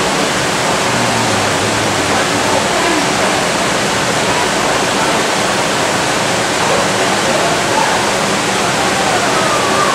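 Steady rush of running water from an indoor water feature, even and unbroken, with faint voices in the background.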